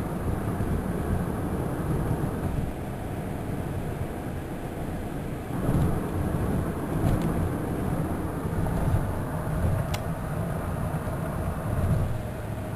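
1994 Cadillac DeVille being driven, heard from inside the cabin: a steady low rumble of road and engine noise, with a couple of faint ticks.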